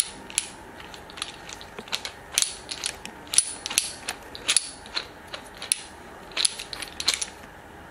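Ventilator hanger arm being turned on its mounting base, giving a run of sharp, irregular clicks, some in quick clusters.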